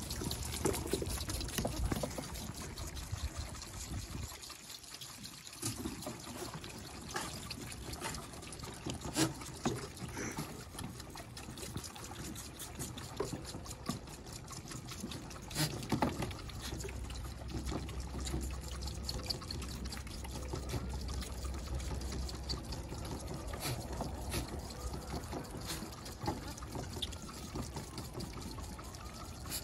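A row of goat kids sucking and slurping milk from bottles on a rack feeder: a continuous wet smacking and gulping made of many quick clicks.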